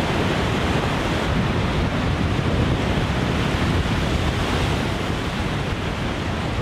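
Rough, wind-driven water: waves breaking with wind, a steady rushing noise that eases a little near the end.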